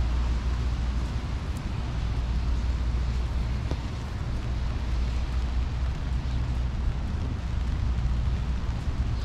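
Steady low rumble of road traffic on a rainy city street, with an even hiss over it.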